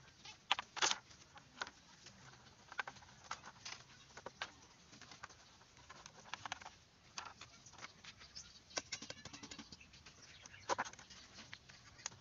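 Scattered light clacks and taps of split bamboo slats knocking against each other and the bamboo frame as they are handled and laid in place, at irregular intervals with a small cluster near the three-quarter mark.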